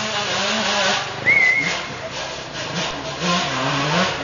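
Enduro motorcycle engines revving hard off-road, the revs rising and falling unevenly. A short high squeal sounds about a second in.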